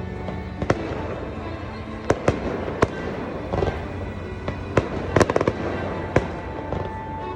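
Fireworks exploding: sharp bangs at irregular intervals, with a quick cluster of several about five seconds in, over a steady rumbling bed and faint music.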